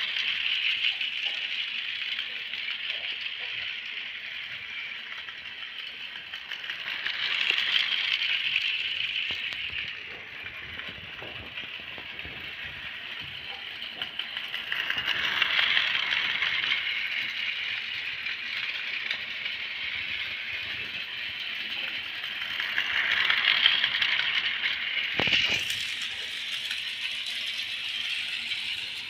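Battery-powered toy steam train running round a plastic track, its motor and wheels rattling steadily. The rattle grows louder about every eight seconds as the train passes close on each lap, with a sharp knock near the end.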